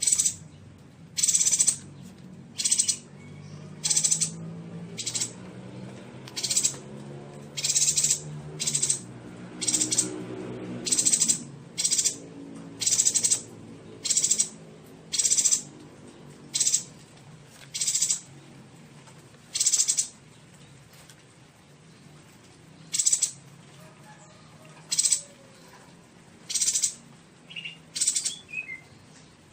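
Yuhina calling over and over: short, high, bright chirps about once a second, with a pause of about three seconds two-thirds of the way through. A faint low hum runs underneath.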